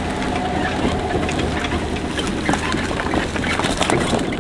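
Pickup truck engine idling, with dense rattling and clattering from the truck and its cargo trailer.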